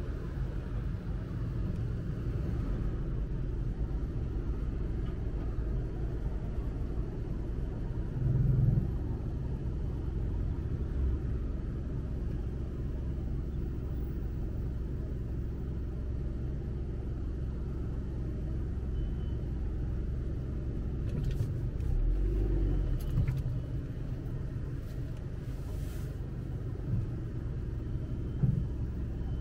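Steady low rumble of a car heard from inside its cabin while creeping along in traffic, with a few brief thumps.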